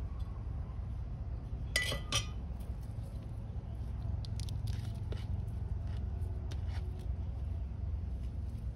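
Hands working granular organic fertilizer into the soil of a potted plant: small scattered rustles and clicks, with one brief louder scrape about two seconds in, over a steady low rumble.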